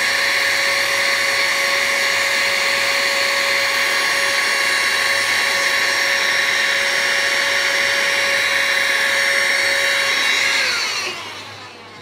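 Handheld electric blower running steadily with a high whine, blowing air to cool a freshly pressed DTF transfer before a cold peel. It is switched off about ten and a half seconds in and its motor winds down with a falling whine.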